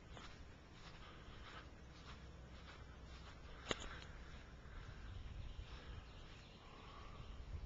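Faint outdoor background with soft ticks and rustles, such as footsteps or the camera being handled, and one sharp click about halfway through. A low rumble rises near the end.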